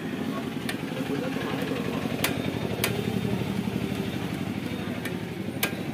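Hero Splendor BS6 motorcycle's single-cylinder engine idling steadily, its idle speed set too fast and being turned down. A few short sharp clicks sound over the idle.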